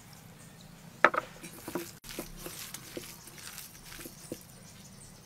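Faint, wet squishing and small ticks of bare hands kneading seasoned ground pork in a steel mixing bowl, with one sharper sound about a second in.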